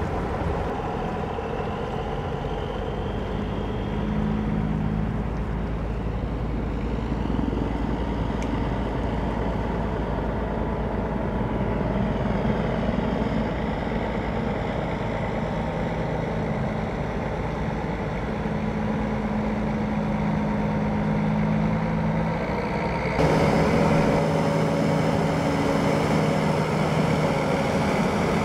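Heavy-duty wrecker's diesel engine running as it pulls away towing a box truck, its pitch wavering as it moves off. Near the end the sound jumps suddenly louder and brighter.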